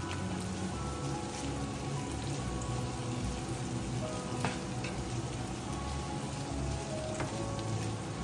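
Chopped onion and strips of sliced meat sizzling in a frying pan as they are stirred with a plastic spatula, with a few sharp clicks of the spatula against the pan.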